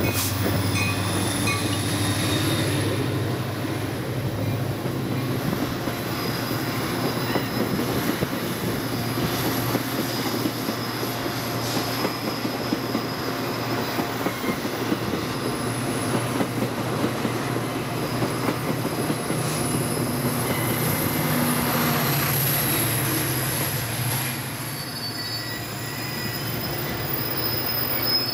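Diesel-hauled commuter train of bi-level passenger coaches rolling past close by, a steady rumble with the wheels squealing in thin, high, sustained tones. A low engine hum is heard in the first few seconds.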